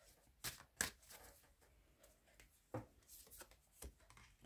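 Tarot cards being handled: a few faint, short taps and rustles of cards.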